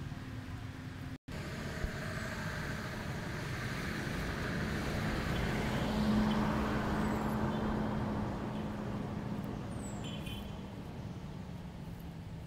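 A motor vehicle passing on a nearby road: engine and tyre noise with a steady low engine tone swells to its loudest about halfway through, then fades.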